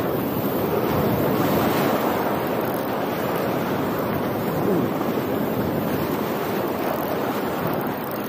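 Sea surf washing and foaming over rocks close by: a steady, unbroken rush of water.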